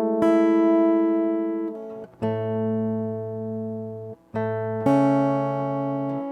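Acoustic guitar playing slow background chords, four chords struck and each left to ring and fade.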